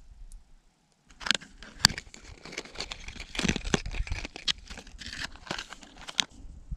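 Clear plastic jighead pack being opened and handled: irregular crinkling and clicking of plastic, starting about a second in and stopping shortly before the end.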